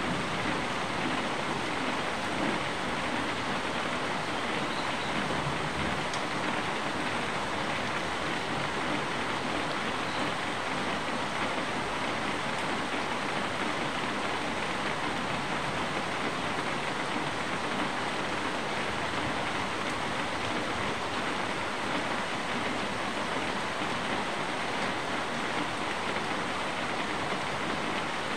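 Steady rain falling, an even hiss that holds unchanged throughout.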